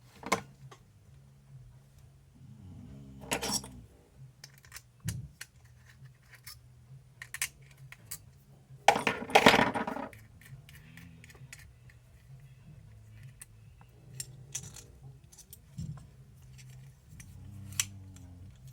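Small metal parts clinking and clattering against a hard bench surface as they are handled, in scattered clicks with one denser, louder burst of clatter about halfway through.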